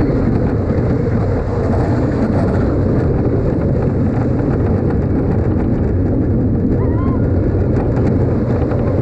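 Balder wooden roller coaster train running at speed along its wooden track: a loud, steady rumble of the wheels on the rails, with no let-up.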